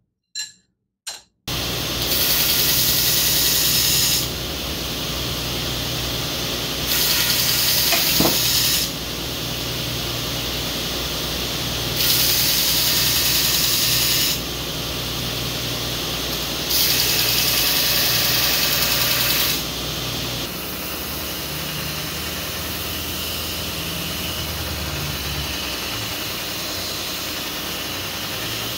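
Belt grinder running, with 1084 steel knife blanks pressed to the belt to clean them up after heat treatment: four passes of about two seconds each, about five seconds apart, each a louder hiss over the motor's steady hum. After a few clicks the grinder comes in about a second and a half in, and its hum shifts in pitch about twenty seconds in.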